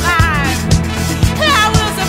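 Background music with a steady drum beat, a bass line and a gliding melody on top.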